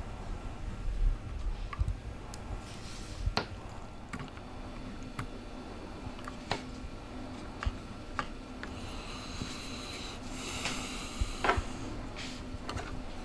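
Small clicks, taps and rubbing from handling a drone arm and its wires during soldering, scattered and irregular. A faint steady hum runs through the middle, and a short hiss comes about ten seconds in.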